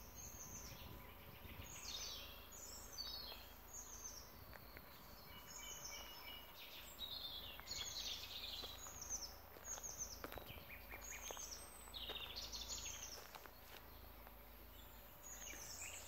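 Several small songbirds chirping and singing, a steady stream of short, quick, high falling notes from more than one bird, with a few short whistled notes about six seconds in, over a faint steady background hiss.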